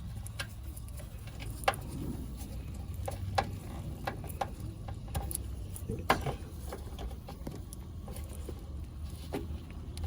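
Scattered sharp clicks and knocks from handling a 9006 LED headlight bulb and pushing its plastic wiring connector fully into place, over a steady low hum.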